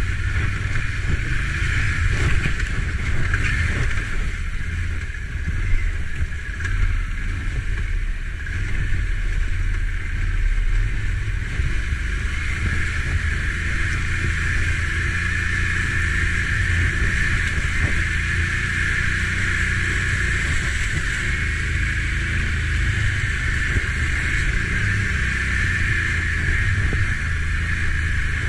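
Can-Am ATV engine running steadily as the quad drives through a shallow, muddy creek bed, with its tyres churning through water and mud.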